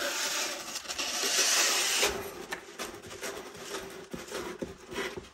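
A rifle being pulled out of its cardboard shipping box, scraping against the foam inserts and cardboard: a steady scrape for about two seconds, then lighter rustles and small knocks.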